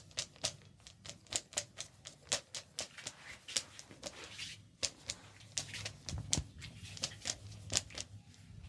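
Hands slapping and tapping on an oiled head during a head massage: quick, sharp strokes, about three a second, in an uneven rhythm.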